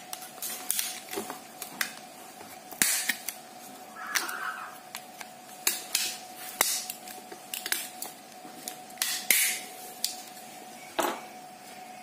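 A thin metal tool pries and scrapes along the seam of a Samsung TV remote's plastic case, with irregular sharp clicks and snaps as the case's clips give way one by one. There are a few longer scrapes, the strongest about three seconds in and about nine seconds in.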